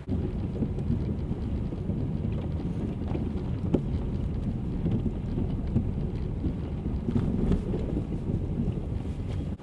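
Strong wind buffeting the microphone in a near-blizzard winter storm: a loud, gusty low rumble that starts and cuts off abruptly.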